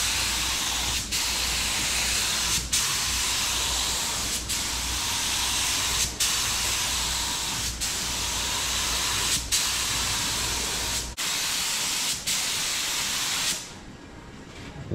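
Gravity-feed paint spray gun hissing as it sprays blue paint onto a truck hood, its air supply reduced to about 35 to 40 psi. The hiss breaks off briefly about every one and a half seconds, and stops near the end.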